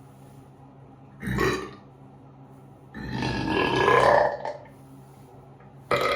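Deliberate human burps, three in a row: a short one about a second in, a longer drawn-out one in the middle lasting over a second, and another starting near the end.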